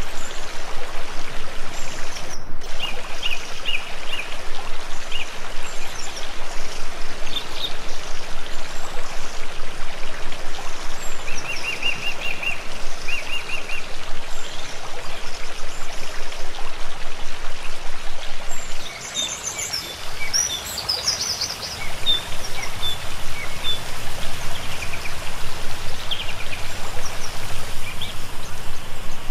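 Steady rush of flowing water with small birds chirping and trilling over it; the water sound drops for a few seconds about two-thirds through.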